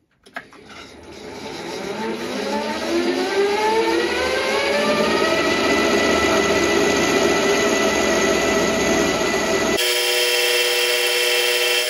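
Milling machine spindle motor starting and winding up to speed with a rising whine over about five seconds, then running steadily while the end mill takes a light cut along a cast-iron block. Near the end the sound changes abruptly to a cleaner set of steady tones.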